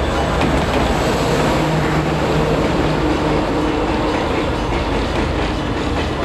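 Diesel locomotive passing close by on the next track, its engine droning for the first few seconds, followed by the steady rumble of its freight wagons rolling past.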